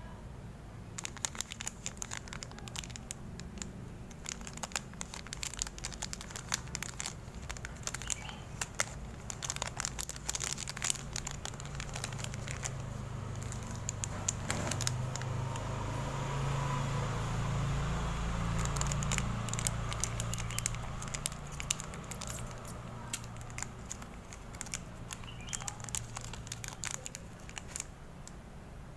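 Foil sachets of windshield-washer tablets crinkling and crackling as they are handled, one torn open; many sharp crinkles come one after another. A low background rumble swells and fades in the middle.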